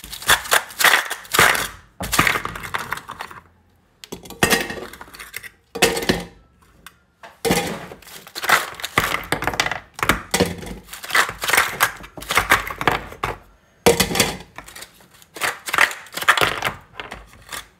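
Irregular clatter and knocks of kitchen items being handled and set down on a counter while iced coffee is prepared, in quick runs broken by brief pauses.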